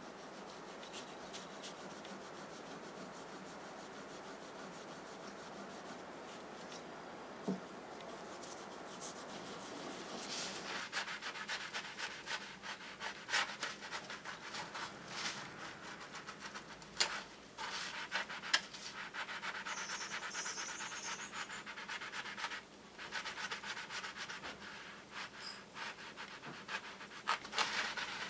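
A small pad rubbed back and forth on a stainless steel kitchen knife blade, a steady soft scraping. About ten seconds in it gives way to louder scrubbing of the blade with a soapy sponge in a stainless steel sink under running water, in quick strokes with short pauses.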